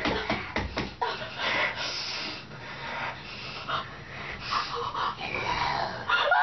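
A person breathing heavily in a run of raspy, hissing breaths, with a few short rustles in the first second.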